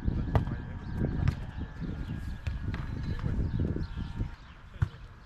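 Beach volleyball rally: a handful of sharp slaps of hands and forearms on the ball, most of them in the first second and a half and one near the end, with feet shuffling in sand. Under them is a low rumble that fades about four seconds in.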